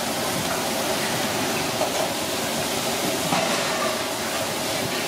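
Tap water running steadily, splashing over a giant isopod's shell and into a steel sink.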